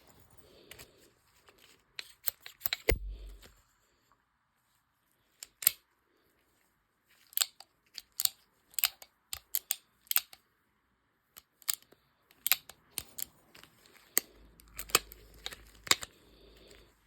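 Sharp metallic clicks and small knocks from a Smith & Wesson .22 Magnum revolver being handled, coming irregularly with short pauses, and a heavier thud about three seconds in.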